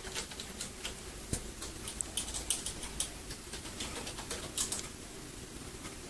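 Typing on a computer keyboard and clicking a mouse: irregular light clicks in short runs.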